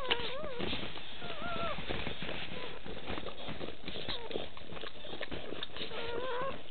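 Newborn puppy giving thin, wavering squeaking cries, a couple near the start, one about a second and a half in and another near the end, over steady rustling and small clicks of bedding as it crawls.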